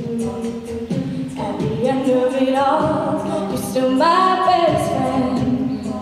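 College a cappella group singing: the voices hold chords under an upper line that climbs in steps through the middle of the passage. A steady beat of short, crisp vocal-percussion strokes runs through it.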